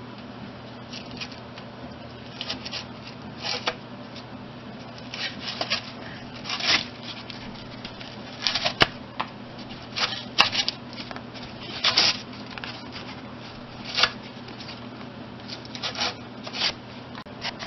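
Irregular scrapes and clicks of a front axle shaft being turned and pushed by hand into the axle housing, over a steady low hum.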